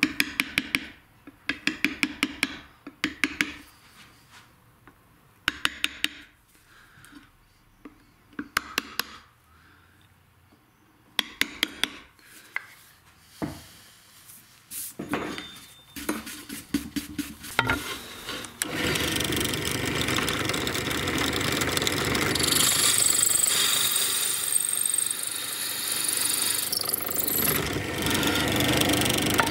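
Rapid clusters of sharp taps: a mallet driving a steel chisel to cut letters into Welsh slate, with short pauses between clusters. About two-thirds of the way in, a power saw starts and runs steadily with a loud, hissing sound.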